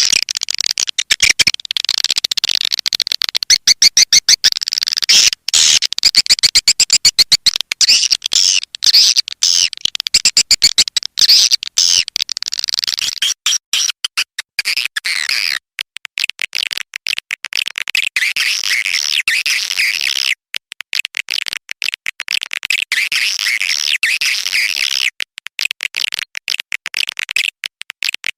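Swiftlet lure call recording: dense, rapid high-pitched chirping and twittering of swiftlets with fast trains of clicks, most click-heavy in the first half and smoother twittering later. This is the kind of call track played in swiftlet houses to draw the birds in to roost and nest.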